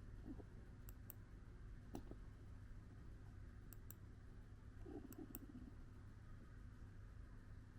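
Near-quiet room with a sleeping cat's faint breathing: a short, soft, low snore about five seconds in, and several faint clicks, mostly in pairs.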